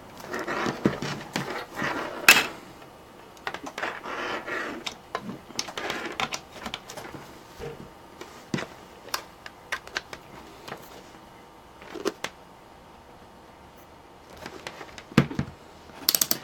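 Scattered clicks, light knocks and rustles of cables and small objects being handled on a desk, at uneven intervals with a quick run of clicks near the end.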